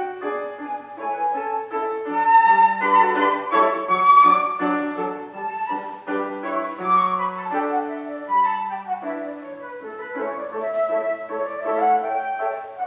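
A classical concerto played by a solo instrument with piano accompaniment: a flowing melody over steady accompanying chords.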